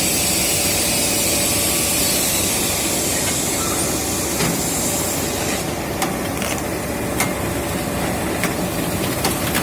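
Automatic power-cable coiling and wrapping machine running: a steady mechanical hum and hiss, with a high whine that stops about five and a half seconds in, followed by several sharp clicks.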